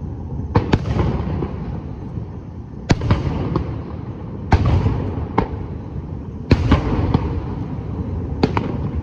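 Fireworks display: aerial shells bursting with sharp bangs every second or two, about eight in all, over a continuous low rumble of booms.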